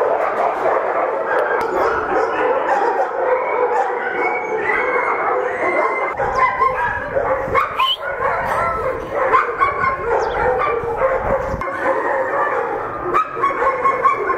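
Many kennelled shelter dogs barking, yipping and whining at once in an overlapping chorus, with a low rumble for several seconds in the middle.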